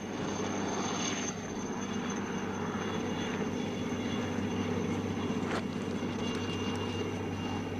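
Small aircraft's engine running with a steady drone.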